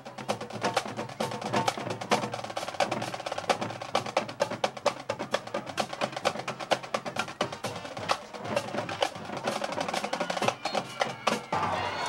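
Drumline percussion playing a fast cadence of sharp, dense drum and stick hits, with snare-like rolls.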